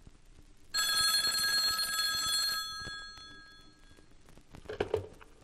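Telephone bell ringing for about two seconds, then dying away, followed by a short knock near the end. Faint record-surface crackle runs underneath.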